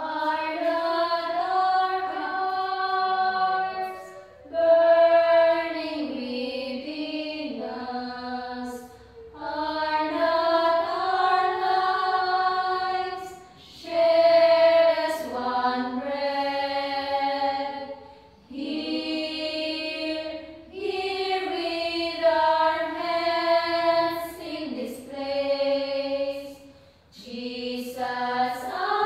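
A small women's choir singing unaccompanied, phrase by phrase, with short breaks between phrases every few seconds.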